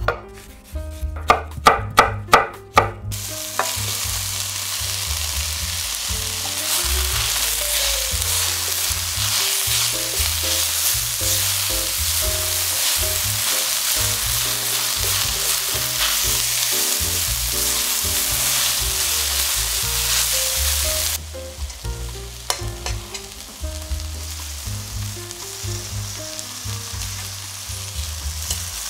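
Sliced red bell peppers and onions sizzling in oil in a stainless steel sauté pan while being stirred, after a few sharp ringing strikes at the start. A little past two-thirds of the way through the sizzle drops to a quieter level, with light clinks of tongs against the pan.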